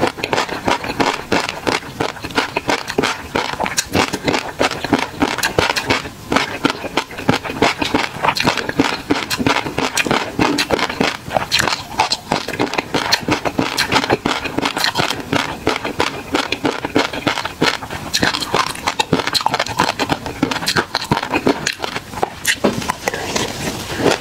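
Close-miked chewing of a mouthful of tobiko (flying fish roe) in peanut sauce: a dense, continuous run of rapid small clicks and pops with wet mouth sounds.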